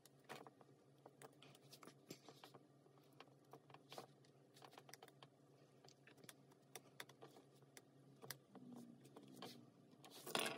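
Faint, scattered small clicks and scrapes of a screwdriver turning the screws of a terminal block as wires are fastened into it on a circuit board, over a low steady hum.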